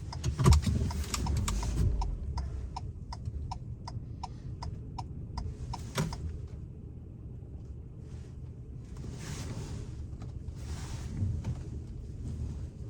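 A vehicle's turn-signal or hazard clicker ticking evenly, about three ticks a second for a few seconds, over a low engine rumble as the vehicle is parked. A knock comes just before the ticking, and a sharper click ends it about six seconds in; later come swells of rushing noise.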